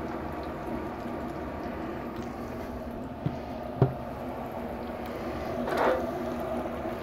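Battered chicken deep frying in a skillet of hot oil: a steady sizzle and bubbling. Two small clicks come a little past the middle, and there is a brief louder swell of sizzle near the end.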